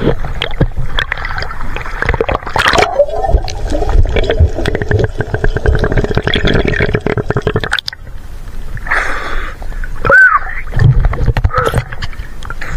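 Choppy seawater sloshing and splashing against a camera held at the surface, with muffled underwater gurgling and bubbling while it is under the water partway through.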